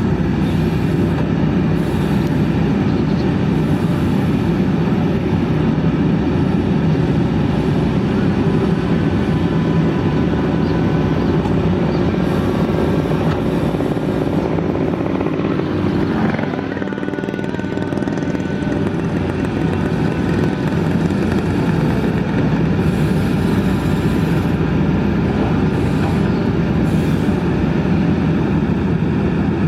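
Kobelco SK200 excavator's diesel engine running steadily under working load, easing briefly about halfway through.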